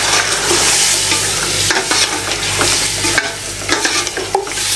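Chicken, potatoes and tomato-onion-yogurt masala sizzling in oil in a steel pressure cooker, stirred with a metal spoon that scrapes and knocks against the pot now and then. The masala is being cooked down so the water from the yogurt and tomatoes boils off.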